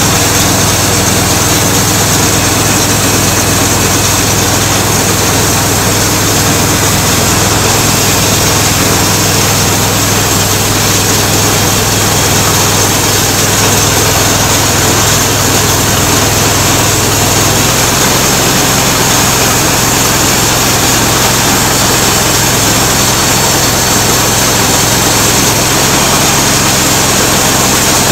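Small gasoline engine driving a homemade bandsaw mill, running steadily at speed while the blade saws a black walnut log. The engine note drops slightly about two-thirds of the way through.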